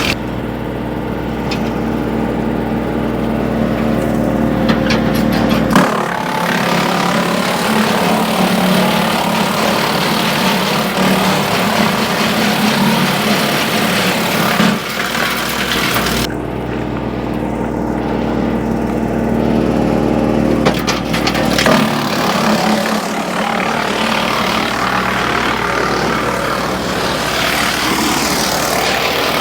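Woodmaxx WM8H 8-inch PTO wood chipper running off a tractor, chipping branches: a steady mechanical run whose note shifts several times as wood is fed in and the load changes, with bursts of cracking and snapping as the branches are chewed up.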